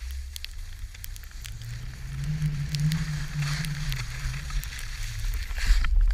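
Skis sliding and scraping on snow with wind rumbling on a GoPro's microphone, with scattered clicks and a low hum in the middle; the scraping hiss grows louder near the end.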